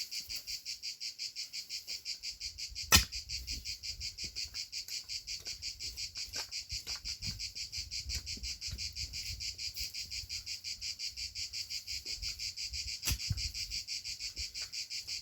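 Crickets chirping in a steady, high pulsing chorus at about five pulses a second. A single sharp knock sounds about three seconds in, with a fainter one near the end.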